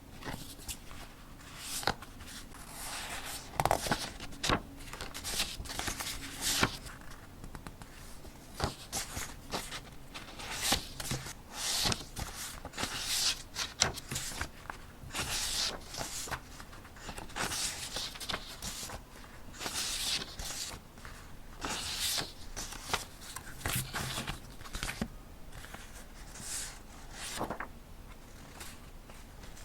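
Paper being handled at close range during journal decorating: irregular rustling and swishing with many small sharp clicks and taps.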